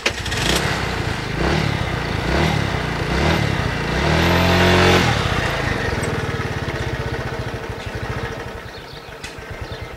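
A Chinese 139QMB 50 cc four-stroke single-cylinder scooter engine running just after starting. Its revs climb to a peak about four to five seconds in, then drop back, and the engine grows quieter toward the end.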